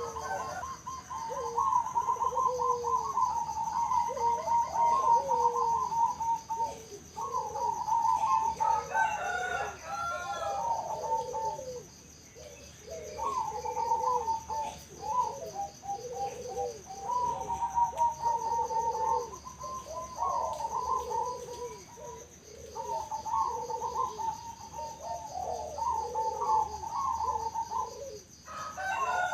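Many zebra doves (perkutut) calling at once, with overlapping trilled, staccato cooing phrases that run on almost without pause. A steady high-pitched tone sounds throughout.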